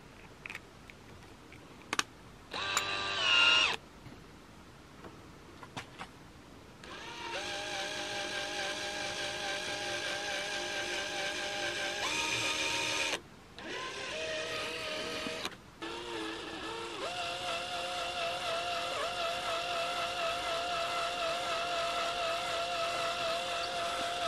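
Cordless drill driver's motor whining as it turns a screw extractor bit into a stripped screw head in wood, run in reverse to back the screw out. A short burst about three seconds in, then long steady runs from about seven seconds in, stopping briefly twice.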